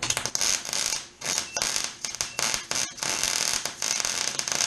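Wire-feed (MIG) welder arc crackling and sizzling while tack-welding square steel tubing, in a run of bursts with brief breaks between them.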